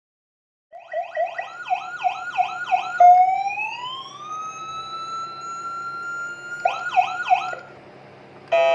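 200 W electronic siren driven through a hand-wound output transformer. It starts with a fast yelp of repeated rising-and-falling sweeps, then a tone that rises and holds steady for a few seconds, then the yelp again. Near the end comes a short buzzing horn-like blast.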